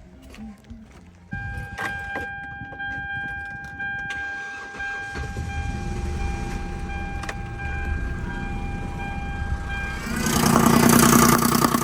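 A steady electronic tone comes in about a second in, then near the end the Hyundai Sonata's 3.3-litre V6 cranks and starts, the loudest part, with its MAP sensor unplugged.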